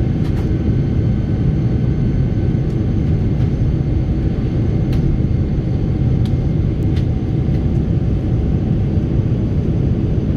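Steady cabin rumble of a Boeing 777-300ER in flight, heard from a window seat beside the wing: the drone of its General Electric GE90 turbofans mixed with the rush of air past the fuselage.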